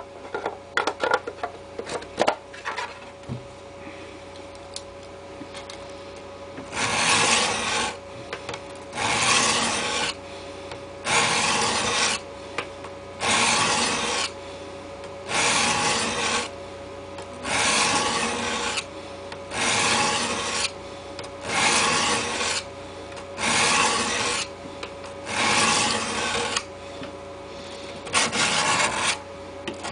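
Folding-knife blade drawn across the 400 face of a four-sided diamond sharpening block: a rasping scrape about once every two seconds, each stroke lasting about a second, starting several seconds in. A few sharp clicks and knocks come near the start.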